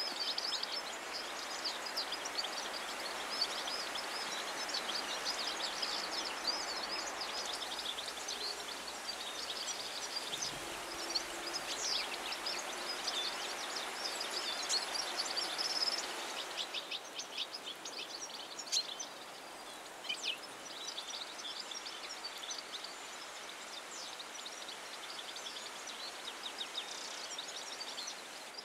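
European goldfinches twittering: many quick, high chirps and trills over a steady outdoor hiss. The twitter is dense for the first half, then thins out after the background changes a little past halfway.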